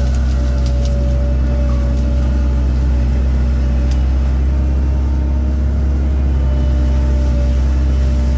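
A 1997 Link-Belt 2700 excavator's diesel engine running steadily, a constant low drone with a thin steady whine above it.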